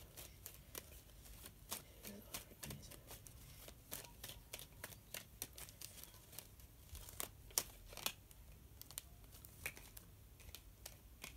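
Faint, irregular crisp clicks and rustles of a tarot deck being shuffled and handled.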